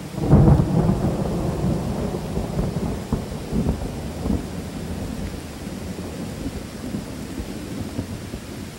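A thunderclap over steady rain: a loud rumble breaks just after the start, with a few crackles, and dies away over the next few seconds, leaving the rain.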